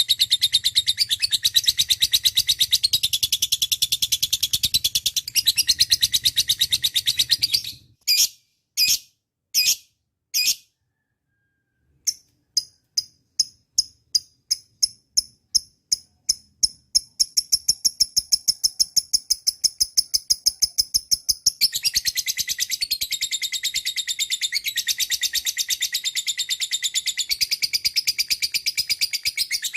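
Lovebird singing a long, rapid chattering trill, the "ngekek" song. About eight seconds in it breaks off into a few separate notes and a brief silence. It then restarts with spaced chirps that come faster and faster until they run together into the continuous chatter again.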